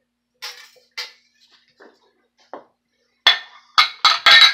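Wire whisk clinking against a stainless steel mixing bowl while stirring a raw egg mixture: a few light clinks, then from about three seconds in, four loud clinks in quick succession as the whisking gets going.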